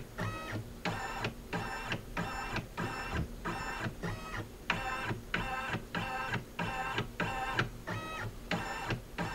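Baby Lock embroidery machine's embroidery unit moving the hoop in steps under its built-in camera, a motor whine in short regular pulses about twice a second, as the machine scans the hooped fabric to capture the background for positioning the design.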